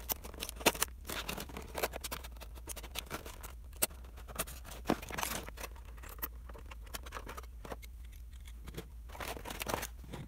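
Stiff clear plastic clamshell packaging being handled and pried apart to free a small diecast model truck: irregular crackles, clicks and scrapes of the plastic.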